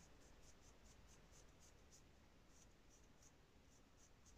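Faint, quick scratching strokes of a dry brush's bristles dragged back and forth over a gritty, sand-textured miniature base.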